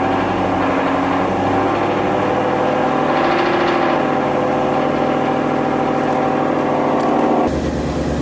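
Twin-turbocharged Ford Mustang GT 5.0 V8 idling steadily on its first start after an oil and transmission fluid change. The sound is heard from inside the cabin, then turns abruptly deeper and fuller near the end as the microphone moves outside the car.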